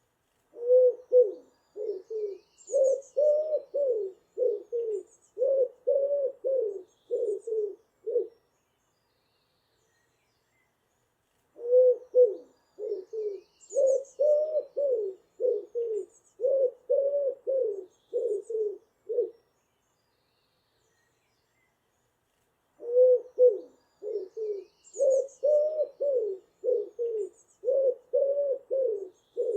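A pigeon cooing in three long bouts of repeated low coos. Each bout lasts about eight seconds, with a pause of a few seconds between bouts, and the last one runs on past the end. Faint high chirps of small birds sound behind it.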